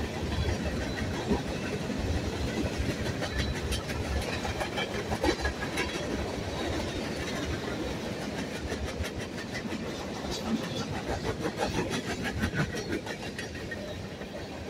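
Freight cars rolling past at steady speed: a continuous rumble of steel wheels on rail with rapid repeated clicks as the wheels cross the rail joints.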